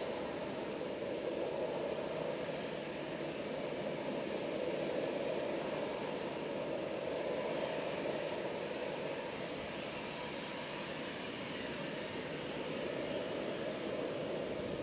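Jet airliner engines running steadily at low taxi thrust, an even rushing hum with no rise or fall.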